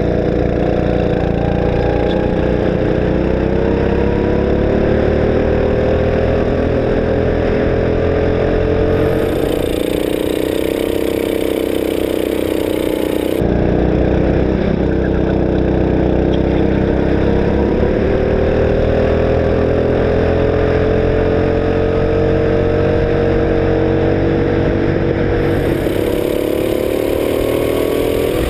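Sodi rental go-kart engine at racing speed, heard from an onboard camera, its pitch rising and falling with the throttle through the corners. The sound changes abruptly a few times where the recording cuts from one kart's camera to another.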